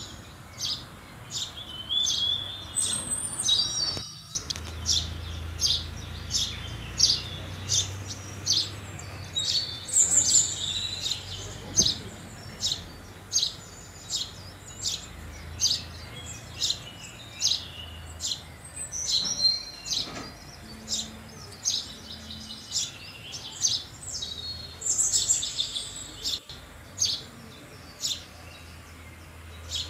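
House sparrow chirping: a steady series of short chirps about once a second, broken now and then by brief bursts of several quick chirps together.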